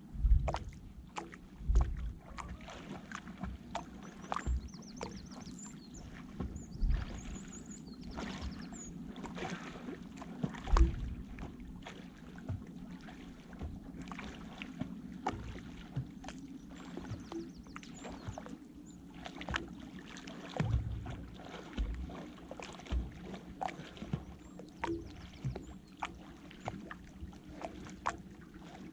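Irregular splashing and sloshing of river water as a person swims across, pushing a rucksack packed in a bivy bag as a float. It runs over a steady rush of flowing water, with a few louder thumps.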